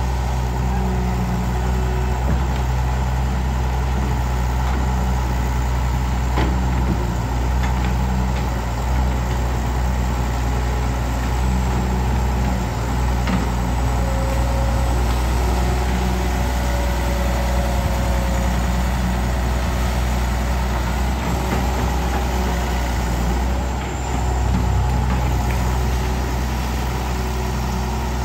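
Kobelco SK09 excavator's diesel engine running steadily while it digs, with a few light knocks.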